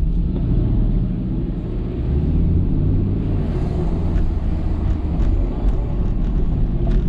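Steady low rumble of car engine and road noise, heard from inside a moving car in city traffic.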